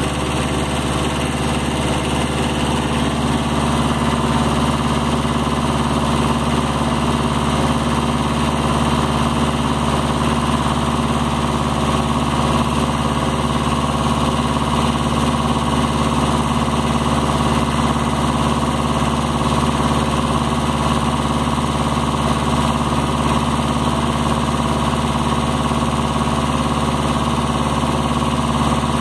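Kubota B7000 compact tractor's three-cylinder diesel engine running steadily while it powers the hydraulics of a homemade front loader. It grows slightly louder a few seconds in.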